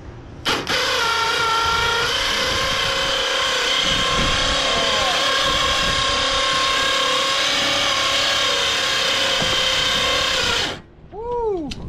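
A motor-driven machine or power tool running steadily, starting abruptly about half a second in and cutting off abruptly near the end.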